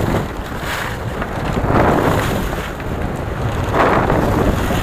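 Wind buffeting the microphone on a boat at sea, a steady low rumble under a rushing hiss that swells louder twice, about two seconds apart.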